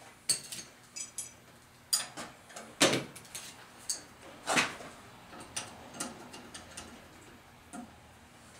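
Irregular metallic clinks and knocks, some with a brief high ring: bolts, washers and hand tools being handled while bolting a timber cart together.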